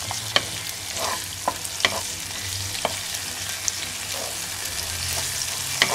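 Sliced onions and ginger-garlic paste sizzling in hot oil in a non-stick frying pan while a wooden spatula stirs them, knocking and scraping against the pan several times.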